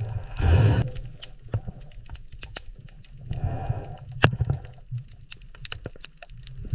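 Sharp, irregular clicking underwater at a cleaning station where small shrimp are cleaning a giant grouper's teeth, heard over a low steady hum. Longer noisy rushes come about half a second and three and a half seconds in.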